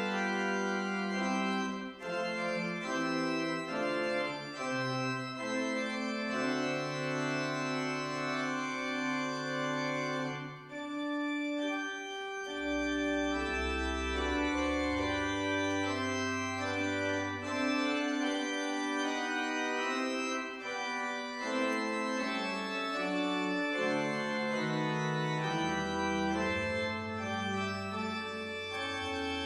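Church organ playing slow, held chords, with deep pedal notes coming in about halfway through and again near the end.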